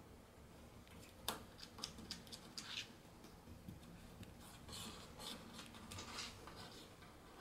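Faint, sparse clicks and short scratchy rustles from a cat's paws and claws on a wooden floor and door as it noses at the gap and shifts along the wall. The sharpest click comes about a second in.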